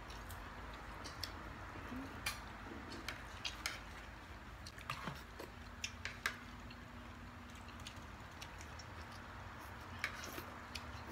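Close-up chewing and eating mouth sounds, with scattered light clicks and taps of a spoon on a plate, over a faint steady low hum.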